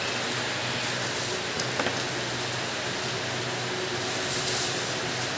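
Steady hiss of shop background noise with a low hum underneath, and a couple of faint clicks about two seconds in.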